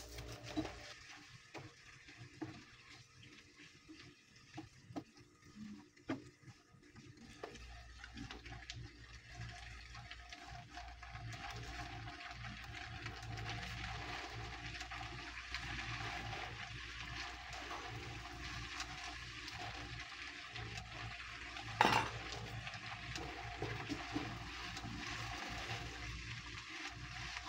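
Pasta with cherry tomatoes and spinach sizzling in a hot frying pan. The sizzle grows louder after the first several seconds. Several utensil clicks against the pan come in the first few seconds, and there is one sharp knock about twenty-two seconds in.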